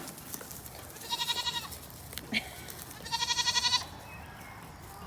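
Goat bleating twice, two wavering, pulsing calls of under a second each about two seconds apart, with a short click between them.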